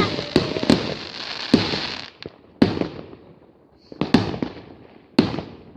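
Fireworks exploding: a run of about eight sharp bangs at uneven intervals, some near and loud, some fainter, each trailing off in an echoing rumble.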